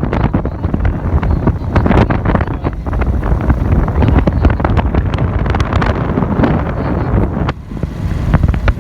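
Strong wind buffeting the microphone: a loud low rumble with frequent crackles, dipping briefly near the end.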